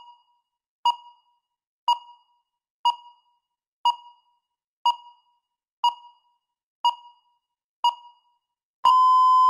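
Electronic countdown-timer beeps, one short beep each second at the same pitch, nine in all. Near the end comes one longer beep, just under a second long, as the countdown reaches zero and the time is up.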